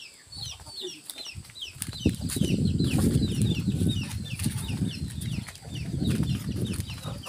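Chickens peeping: many short, high, falling calls, several a second. From about two seconds in, a louder low rumble of the phone's microphone being jostled as it is carried along at a quick pace.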